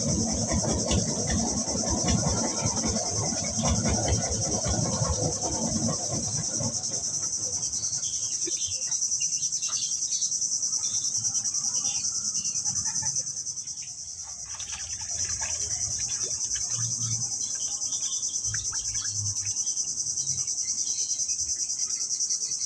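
Steady, high-pitched chorus of insects droning without a break. During the first several seconds there is also close rustling and handling noise.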